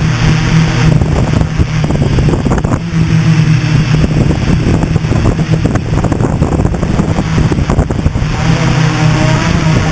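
Hexacopter's six brushless motors and propellers running with a steady, loud hum, with wind buffeting the microphone.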